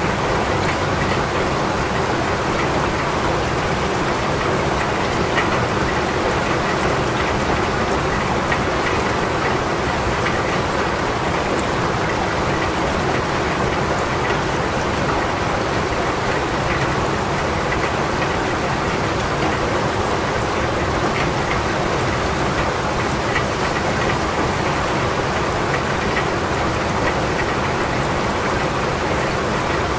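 Steady rain falling, an even hiss of drops that holds constant with no break.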